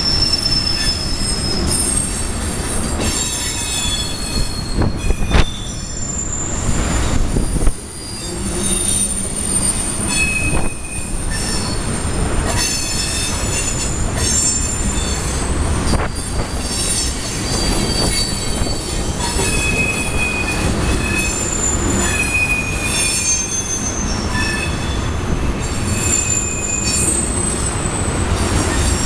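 Wheels of a CSX ethanol tank-car train screeching as the cars take a sharp curve: many high squeals that keep changing pitch, over the steady rumble of the wheels on the rails.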